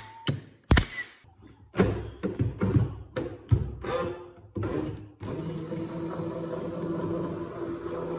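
Knocks and thuds of wooden drawer parts being handled. About five seconds in, an electric recliner-couch motor starts and runs with a steady hum.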